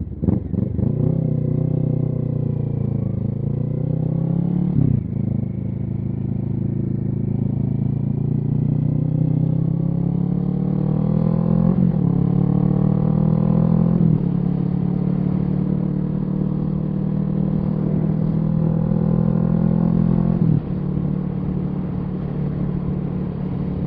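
2017 Kawasaki Z650's parallel-twin engine, through a Yoshimura Alpha aftermarket exhaust, accelerating hard up through the gears. The pitch climbs in each gear and drops at about four upshifts, then settles to a steady cruise near the end.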